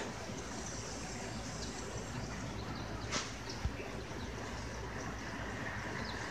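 Steady city background: a low, even rumble of distant traffic, with a few short high chirps and a single sharp click a little after three seconds in.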